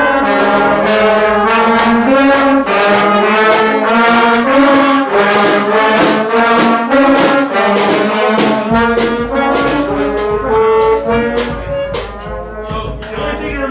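Brass band horns playing many short notes at once, loose and overlapping, as the players work out a new line by ear from the notes concert B flat, D flat, A flat and A. The playing gets a little quieter near the end.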